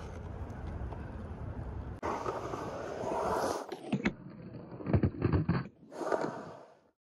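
Skateboard wheels rolling and scraping over concrete, with several sharp clacks of the board and trucks about four to five and a half seconds in. The sound fades out near the end.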